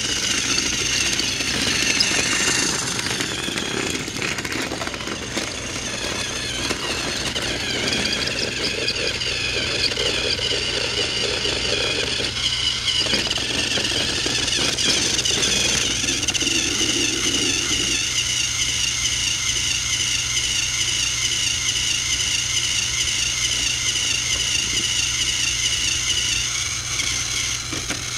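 Battery-operated Thomas the Tank Engine toy train's small electric motor and gearbox running as it drives along plastic track: a steady high whine that wavers slightly in pitch, over a running rattle.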